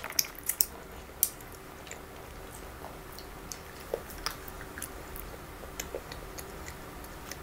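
Close-up chewing and biting of chocolate, with scattered sharp clicks, a cluster of them in the first second or so and fainter ones after.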